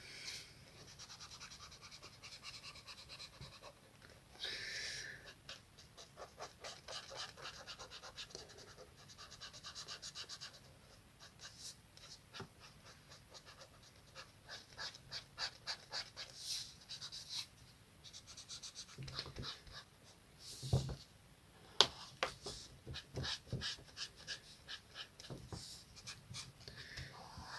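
Colouring strokes scratching on paper, coming in runs of several strokes a second, with a couple of audible tired breaths near the microphone. A sharp click about two-thirds of the way through is the loudest single sound.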